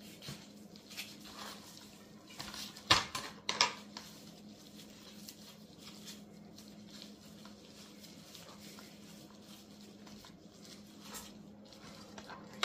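Quiet handling of a raw, seasoned beef chuck roast by gloved hands on a plastic cutting board: soft scattered knocks and rubbing. Two sharp clicks come about three seconds in, half a second apart, over a steady low hum.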